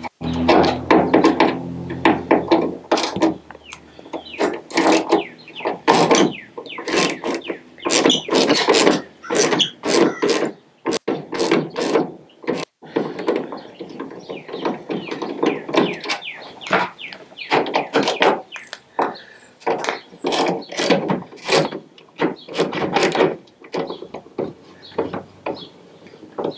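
Ratchet with a T15 Torx bit clicking in quick, irregular runs with short pauses as it backs out the screws holding a pickup's taillight housing.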